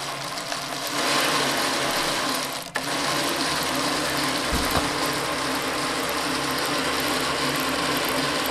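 Atlas 618 lathe running steadily, slowed down a little, driven by a sewing machine motor through a flexible link belt. The belt noise is audible, and the owner can't tell whether it means the belt is too tight or is just how link belts sound.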